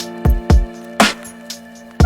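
Background music with a steady drum beat, kick and snare about twice a second over held synth or guitar notes.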